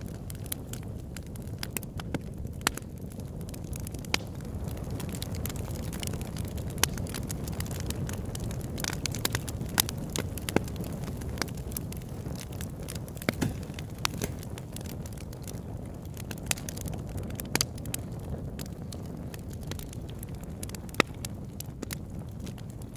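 Campfire burning: a steady low rumble of the flames with irregular sharp crackles and pops, and now and then a louder snap.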